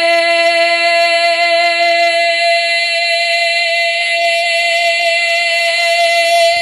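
A naat singer's voice holding one long, steady note without words, with only a slight waver.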